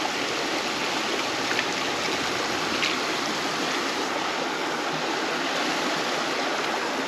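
Creek water rushing steadily, with a couple of faint clicks about one and a half and three seconds in.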